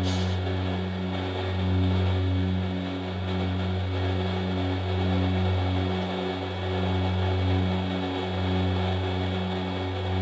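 Milling machine running, its piloted cutter facing into the boss of a steel casting: a steady low motor hum with a regular pulsing throb. A brief hiss right at the start.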